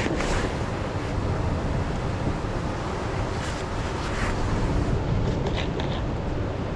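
Steady wind buffeting the microphone over the wash of sea surf on the rocks, with a few faint clicks near the end.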